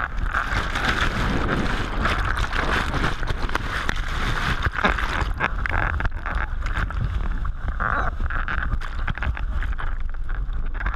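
Whitewater rapids churning and crashing over an inflatable raft, with waves splashing onto a low-mounted action camera that at moments dips under the water. The loud, continuous rush is broken by many short splashes.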